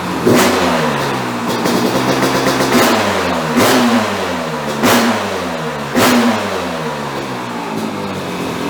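Yamaha YZ500 dirt bike's 500cc two-stroke single being blipped with the throttle about five times, the revs snapping up with a sharp crack and falling back between blips.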